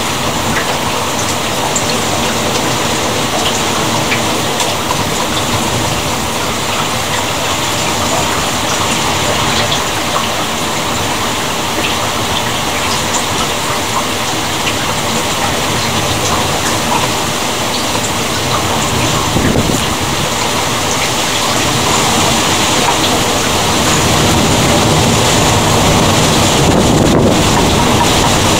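Steady heavy rain falling during a thunderstorm, a dense patter of drops. A low rumble grows louder over the last few seconds.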